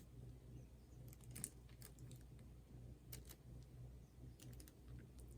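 Faint, irregular light clicks and taps from small craft supplies being handled at a work table, over a low steady hum.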